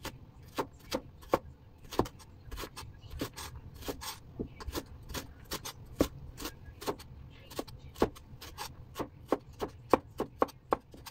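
Wide-bladed kitchen knife dicing carrots on a wooden cutting board: irregular sharp knocks of the blade on the board, about two to three a second, with some scraping as the cut pieces are pushed aside.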